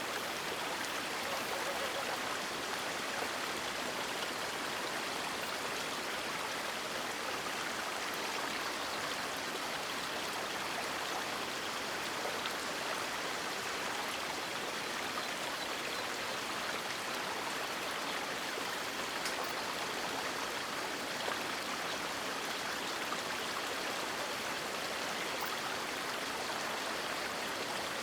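River water running over rocks in a steady, even rush, with no birdsong.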